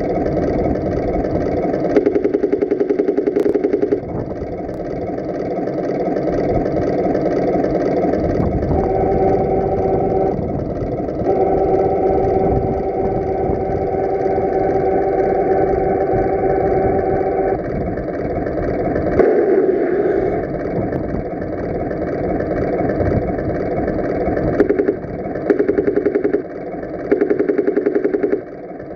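A Tamiya M26 Pershing RC model tank's sound unit playing a simulated tank engine idling. Several stretches of steady humming tones are mixed in, along with three loud runs of rapid, evenly spaced rattling pulses, the first about two seconds in and two near the end.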